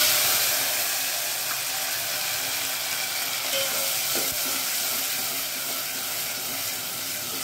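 Chopped tomatoes sizzling in hot oil with cumin and green chilli in a steel pot, the sizzle setting in at once as they hit the oil and easing a little as a steel ladle stirs them.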